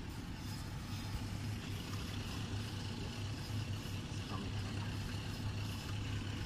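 Outboard motor of a small fishing boat idling with a steady low hum, under a haze of wind and water noise.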